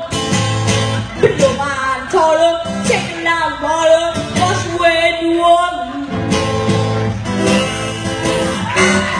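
A young boy singing with steady acoustic guitar accompaniment; near the end a harmonica comes in.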